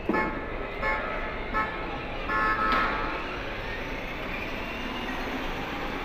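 Short electronic horn beeps from children's battery-powered ride-on toy cars, about four toots in the first three seconds, over the steady hubbub of a large indoor hall.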